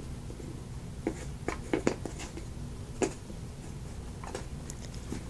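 A few light clicks and knocks of puzzle pieces being handled and fitted together, several close together a second or two in and one more about three seconds in.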